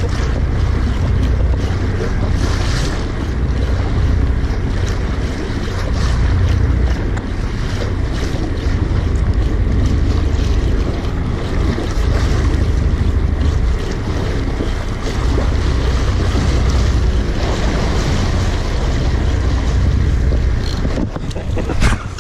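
Wind buffeting the microphone over open sea and waves, a steady low rumble with a brief knock near the end.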